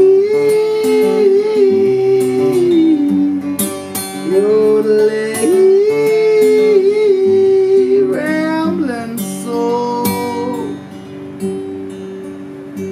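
A man yodeling wordlessly, holding long notes that break and jump sharply in pitch, over a strummed acoustic guitar.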